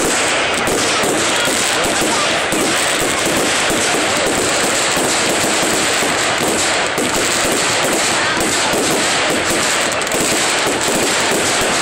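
Fireworks display: an unbroken barrage of closely packed bangs and crackles from exploding firework shells.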